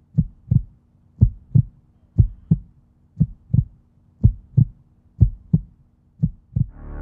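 Heartbeat sound effect: pairs of low thumps, about one pair a second, over a faint steady hum. Ambient synth music swells in near the end.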